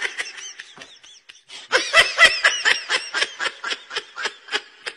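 Someone laughing: a long run of quick, high-pitched ha-ha bursts, about five or six a second, starting about a second and a half in.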